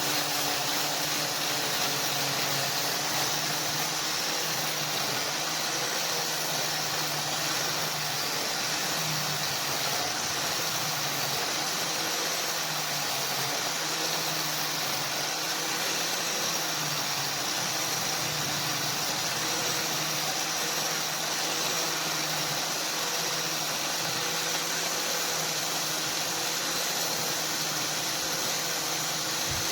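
A motor running steadily, a low hum under an even hiss, without a break.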